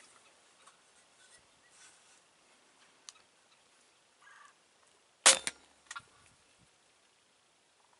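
Crossbow (TenPoint Shadow Ultra-Lite) firing about five seconds in: a sharp snap, with a second crack a fraction of a second later and a couple of softer knocks after it.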